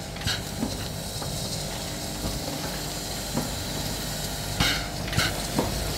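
Class 03 steam locomotive 03 2155 moving slowly under steam, with a steady hiss. A sharp steam chuff comes just after the start, then two more in quick succession near the end, with a few soft knocks in between.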